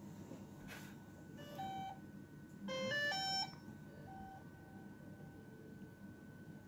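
Two short runs of electronic beep tones stepping up and down in pitch, about a second and a half and three seconds in, the second louder, then a few soft beeps; a faint steady high tone carries on under them. Power-up beeps from the DJI Phantom 4 Pro+ drone and remote controller.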